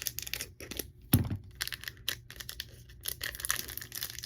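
Crinkly foil wrapper of a Pokémon booster pack crackling as it is gripped and pulled at to tear it open, with one sharp snap about a second in. The pack does not open on this try.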